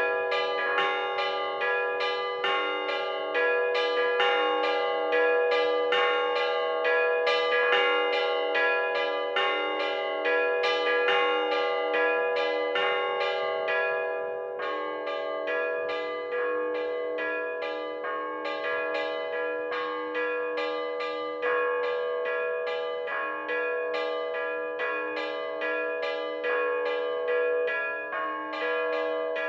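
Russian Orthodox church bells rung by hand in a festive zvon on the medium-sized podzvonnye bells: quick rhythmic strikes, about three a second, over a sustained ringing hum. The pattern of strikes thins out briefly about halfway through, then picks up again.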